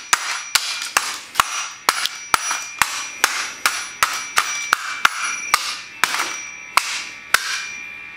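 Claw hammer repeatedly smashing a plastic twin-bell alarm clock on a concrete floor, about two blows a second, each with a short metallic ringing; the blows stop near the end.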